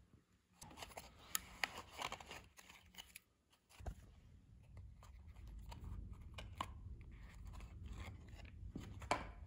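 Faint crackling and clicking of a 3D-printed plastic mold wall being pulled off a plaster mold section, the plastic softened by heating. The clicks come in a quick flurry over the first three seconds or so, then give way to a low steady rumble with a few scattered clicks.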